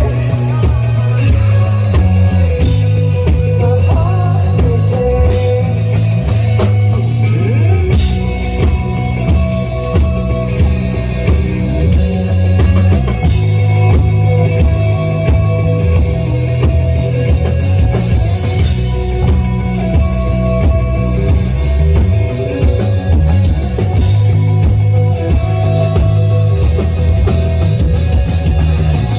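Live rock band playing on a club stage, with a drum kit and guitar in full, loud and steady. About seven seconds in, the cymbals drop out for a moment before the band comes back in.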